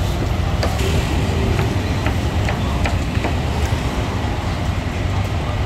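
Steady low rumble of the street surroundings, with scattered light clinks of a metal ladle against a steel wok as soup is scooped out.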